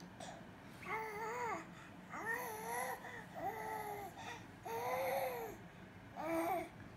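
A four-month-old baby cooing: five drawn-out, high-pitched vowel sounds, each under a second long, with short pauses between them.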